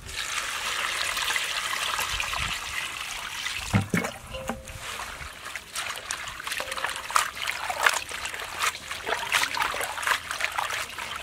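Water poured from a jug into a stainless steel bowl of leafy greens for about the first four seconds, then hands swishing and rubbing the leaves in the water with repeated splashes.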